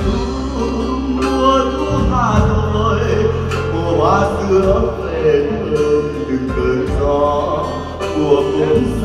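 Live band music: a man singing a Vietnamese ballad into a microphone over acoustic guitar and a sustained bass line.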